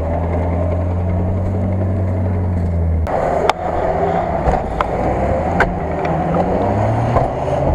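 Off-road 4x4's engine running as it crawls through forest mud, a steady low hum that changes abruptly about three seconds in to a rougher engine sound with scattered sharp knocks.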